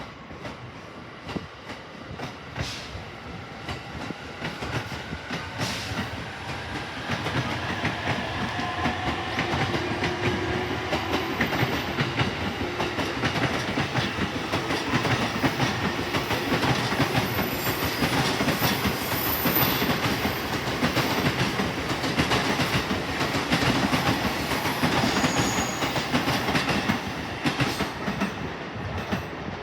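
A train running along the tracks close by, its wheels clicking rapidly over the rail joints and getting louder over the first half, with a faint whine rising in pitch during the first dozen seconds.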